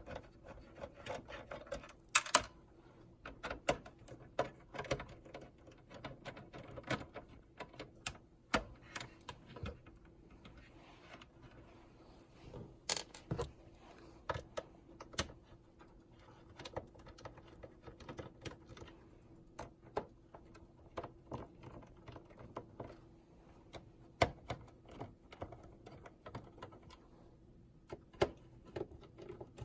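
Irregular small clicks, taps and knocks of plastic and metal parts and a screwdriver being handled as an OKPOS Optimus J19 POS terminal is taken apart, with a faint steady hum underneath.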